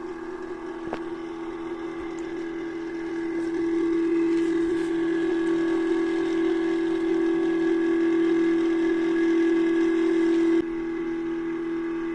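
Small thermal cat printer's stepper motor feeding paper as it prints, a steady mechanical whine with one low main tone. It grows louder a few seconds in and drops to a quieter level near the end.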